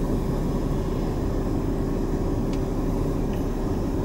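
Steady low hum of a running car heard from inside the cabin, with a faint steady tone running through it.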